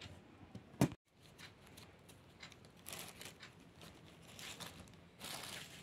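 One sharp click of a knife against a steel plate while cutting cauliflower. After a short break it is followed by faint, irregular rustling and crinkling as hands handle the vegetables and a plastic bag.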